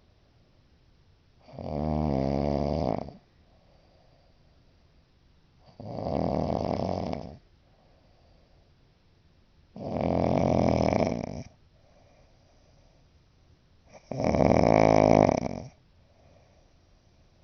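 A woman snoring loudly: four long snores about four seconds apart, each with a buzzing pitch, and a faint breath between them.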